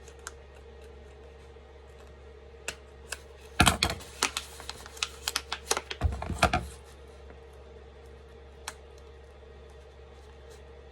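Scissors clicking and snipping at a plastic microwave rice pouch, a run of quick sharp clicks with a couple of dull knocks a few seconds in. The scissors are struggling to cut through the pouch.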